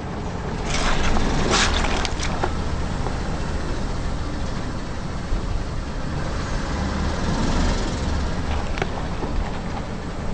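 A car running and rolling slowly, a steady noise with a few faint clicks.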